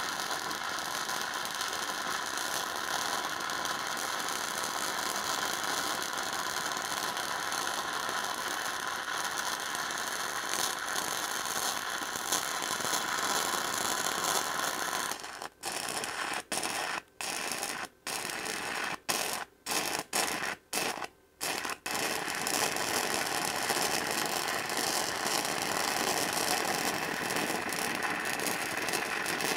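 Arc welding bolt heads onto a steel plate, the arc crackling steadily. About halfway in the arc breaks off and restarts about ten times in short bursts, then runs steadily again for the last third.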